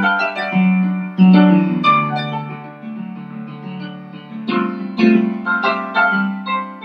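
Instrumental background music: a melody of struck, keyboard-like notes that ring and fade, with new phrases starting about a second in and again around four and a half seconds in.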